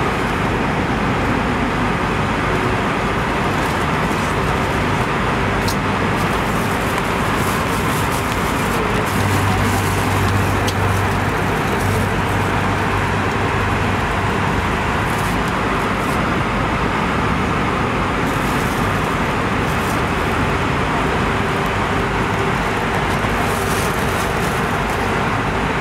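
Steady rushing cabin noise of an Airbus A320 in flight, engines and airflow droning evenly, with a low hum swelling slightly for a few seconds in the middle.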